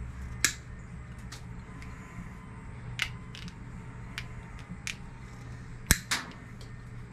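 Nippers snipping plastic zip ties off an ebike's wire loom: a handful of sharp, separate snips and clicks at irregular moments, the loudest about half a second in and near the end, over a steady low hum.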